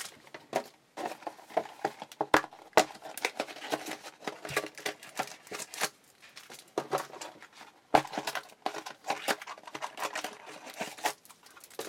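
Trading-card packs being pulled out of their plastic and cardboard packaging by hand: crinkling, rustling and small clicks, with a few sharper snaps about two and a half and eight seconds in.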